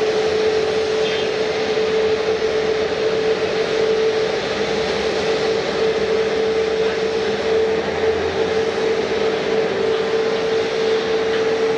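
Jet airliner engines running steadily: an even rushing noise with a strong steady drone, no change in pitch or level.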